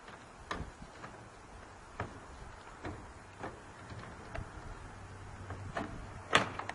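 A horse nosing at the latch of a wooden stall half door: scattered clicks and knocks from the latch and door, about one a second, with the loudest knock near the end.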